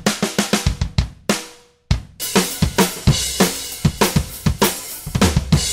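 Playback of a kick-and-snare drum loop whose kick and snare have been replaced by samples triggered from MIDI that Melodyne detected, the sample velocities following the original hits. The playback drops out briefly about two seconds in and starts again, now with cymbals and hi-hat among the kick and snare hits.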